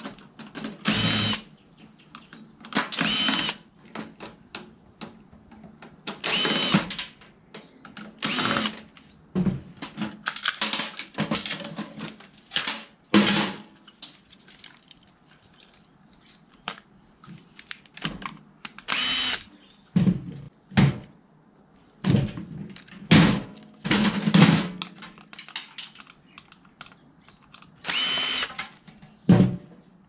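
Power drill running in short bursts of about a second, more than a dozen times, with clicks and knocks of metal parts in between, as parts are taken off a microwave oven's inverter circuit board.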